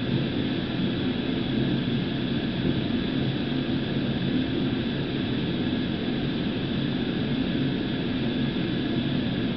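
Steady mechanical hum with a hiss over it, unchanging throughout, as from a machine running.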